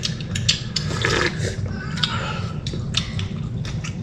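Close-up eating sounds: broth sipped and slurped from a ceramic soup spoon, with mouth smacks and small clicks, over a steady low hum.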